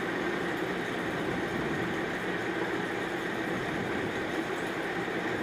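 Steady sizzling of sliced beans and potato frying in spiced oil in a pan, at the stage where they have nearly turned into a dry fry (bhaji).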